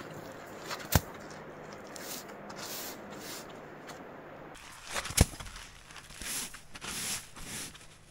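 Camping gear being handled: two sharp knocks about four seconds apart, with scraping, rustling and footsteps around them.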